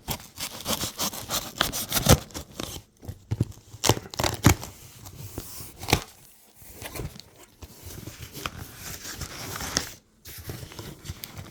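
A box being opened: packaging tearing, rubbing and crinkling, with sharp clicks and knocks in the first half and a long rustle near the end.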